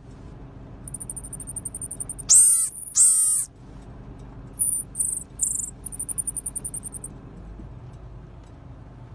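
Infant pygmy marmosets calling: very high-pitched, rapidly pulsing trills, with two louder calls that sweep down in pitch about two and three seconds in.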